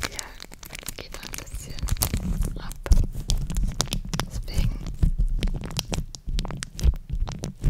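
Crinkly yellow plastic wrapper squeezed and crumpled by hand right on the microphone, crackling in many quick small clicks. Its rubbing against the microphone adds deep low thumps, heavier from about two seconds in.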